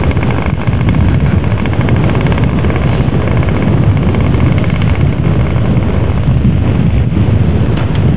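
The glow engine of a radio-controlled scale Messerschmitt Bf 109 model aircraft runs steadily on the ground, giving a loud, continuous buzz of rapid firing strokes.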